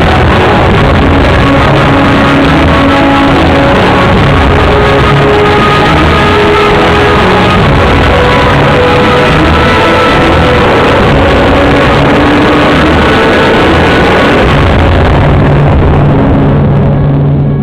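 Loud, dense music with many held instrumental notes.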